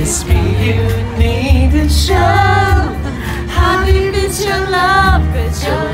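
Pop song playing, with a singer's wavering held notes over a heavy, pulsing bass beat.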